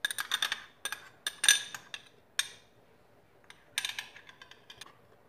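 Clinks and taps of a small container knocking against a plastic mixing bowl as garlic-ginger paste is tipped and shaken out. A quick cluster of sharp taps fills the first two seconds or so, and a second, shorter cluster comes around four seconds in.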